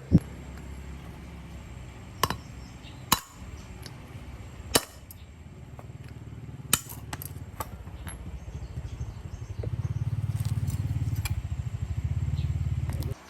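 Small diesel engine running with a steady low pulsing beat, getting louder in the last few seconds and then stopping suddenly, with several sharp metallic clanks in the first half.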